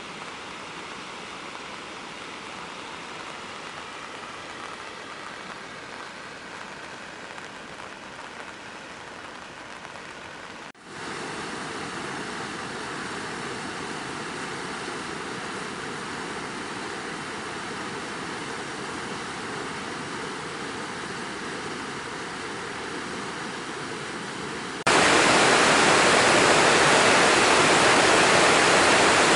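Floodwater pouring over the overflow spillway of the Bolgenach Dam: a steady rush of water from a reservoir at flood level. It gets louder after a cut about eleven seconds in, and much louder near the end, close to the plunging torrent.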